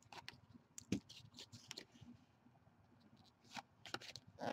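Faint clicking and scratching of Panini Excalibur trading cards being flipped and slid against each other in the hands, in scattered short ticks that cluster near the end.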